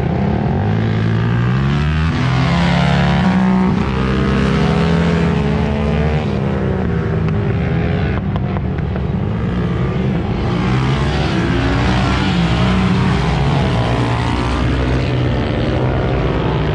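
Several dirt-track racing motorcycle engines revving hard and backing off as the bikes race around a TT track, the engine notes rising and falling and overlapping as they go through the corners and down the straights.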